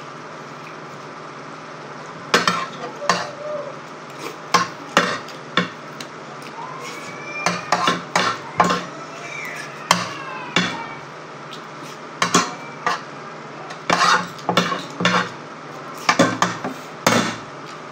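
Metal spoon and fork clinking and scraping against a plate while eating, in irregular sharp clinks, some ringing briefly, over a steady low hum.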